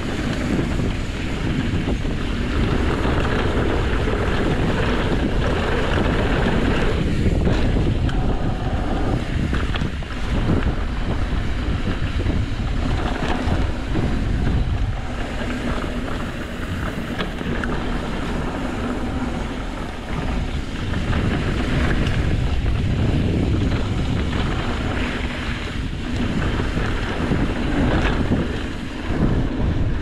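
Wind buffeting the microphone as a mountain bike rides fast down a downhill trail, with tyre rumble and the bike rattling and knocking over bumps.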